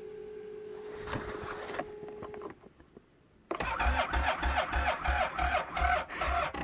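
Arctic Cat snowmobile's electric starter cranking the engine, a rhythmic low chugging of about four to five beats a second that never catches: the cold engine turning over without starting. Before the cranking there is a steady faint whine, then a moment of silence.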